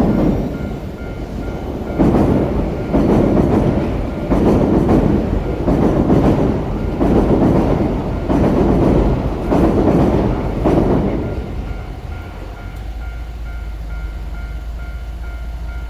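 A train passing over a level crossing, its wheels clattering over the rail joints in a steady rhythm for about eleven seconds before the sound falls away. Through it, the crossing's warning bell keeps ringing in an even, repeating pattern.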